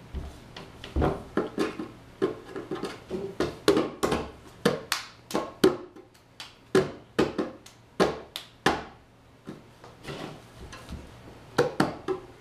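A small child slapping a pair of bongo drums with his hands, in uneven beats. The beats thin out for a couple of seconds and come back as a quick run near the end.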